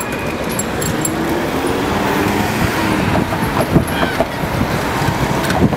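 City street traffic noise: a steady roadway rumble from motor vehicles and bicycles moving through an intersection, with a few light clicks near the end.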